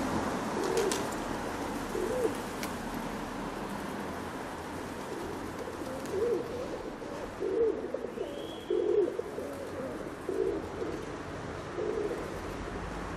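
Doves cooing in short low calls, two early on and then a run of five about every second and a half, over steady street background noise.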